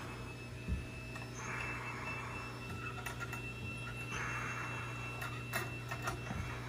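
A towel rubbing a puppy's damp fur in two soft, scratchy stretches, with a few light clicks and taps in the second half, over a steady low hum.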